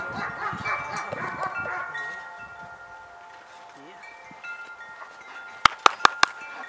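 Metal ringing in several clear tones that start one after another and slowly fade, with four quick, sharp metallic clanks about five and a half seconds in as a puppy runs over the steel mesh panels.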